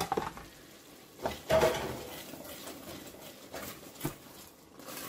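Spoon knocking and scraping against a cooking pan while stirring frozen chopped herbs into simmering tomato sauce: a few separate clinks, the loudest about a second and a half in.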